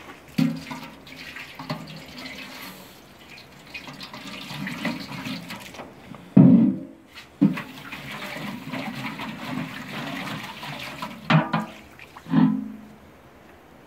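Water running and splashing as chopped tirşik greens are washed in buckets and a pot, with a few loud knocks of the containers; the loudest knock and splash comes about halfway through.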